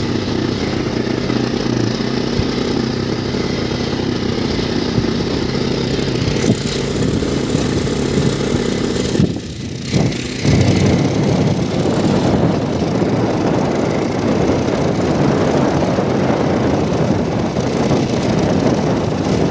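Motorcycle engine running at a steady pitch while riding on a rough dirt road. About nine seconds in the sound briefly drops, then comes back rougher and noisier.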